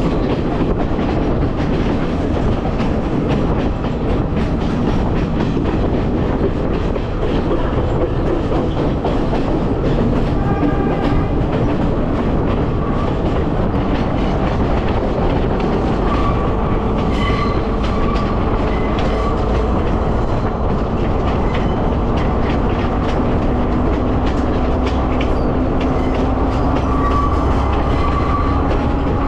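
Passenger train running along the track: a steady rumble and clatter of wheels on rails, with a faint thin whine coming and going.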